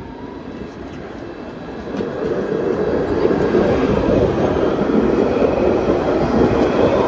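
A city tram approaching and passing close by. Its running noise grows louder from about two seconds in and stays loud to the end.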